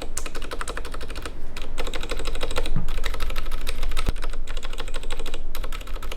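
Mechanical keyboard typed on rapidly, with resin artisan keycaps fitted, as a keycap sound test: a dense, steady run of keystroke clacks with a few brief pauses.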